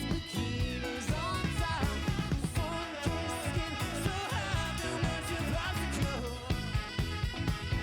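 Background pop music with a singing voice over a steady beat and guitar.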